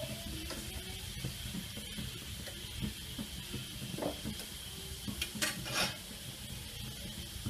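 Beef steaks searing in hot fat in a nonstick frying pan, sizzling steadily with scattered small crackles. A few louder clicks come a little over five seconds in.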